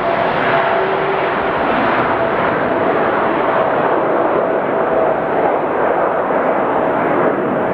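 Boeing 747-8F freighter's four GEnx-2B turbofan jet engines running at high thrust: a steady loud rush of engine noise with a thin held whine, its hiss growing slightly duller as the jet moves away.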